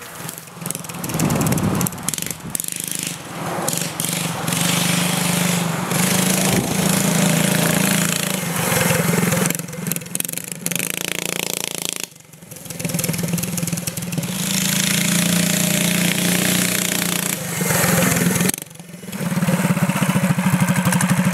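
Modified off-road riding lawn mower engine running hard while mudding, dropping off briefly twice before settling into a steady run near the end.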